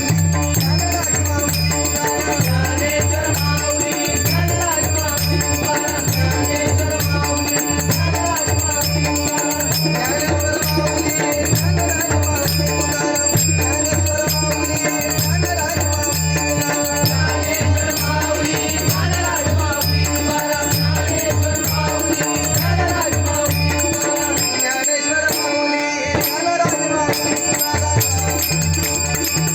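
Devotional bhajan music: a wavering melody over a steady, fast rhythm of small hand cymbals and low drum strokes. The drum drops out for a moment near the end, then returns.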